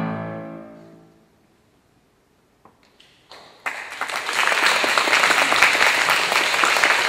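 The final chord of a violin and a Fazioli grand piano rings out and fades away over about a second. After a moment of silence, a few first claps come, then full audience applause breaks out about three and a half seconds in and keeps going.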